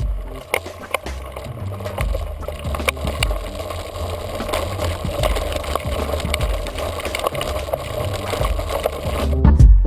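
Camera sound of a bicycle riding over a rough grassy track: steady rattling with many small knocks, over a low rumble.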